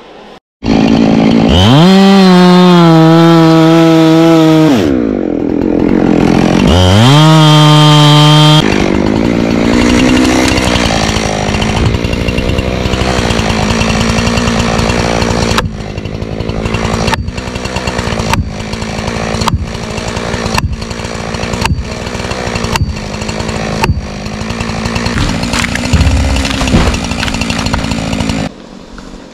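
Chainsaw at full throttle cutting into a tree trunk, easing off once and revving up again, then idling. Over the idle, a plastic felling wedge is driven into the cut with about a dozen sharp blows, a little under two a second.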